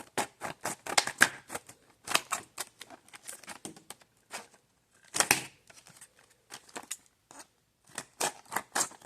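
Heavy-duty scissors snipping through product packaging, a run of quick sharp cuts in clusters with short pauses, one louder cut about five seconds in.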